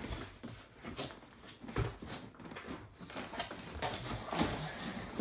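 Cardboard packaging rubbing and scraping with plastic rustling, as a monitor stand is tugged out of its box, with a few light knocks.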